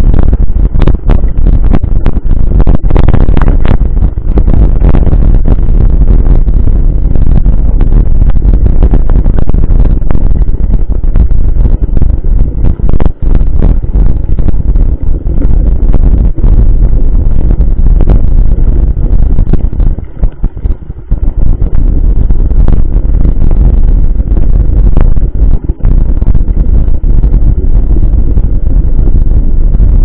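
Mountain bike rolling over a rough dirt road, heard through an action camera's microphone as loud, rumbling wind buffeting with frequent knocks and rattles from the bumps.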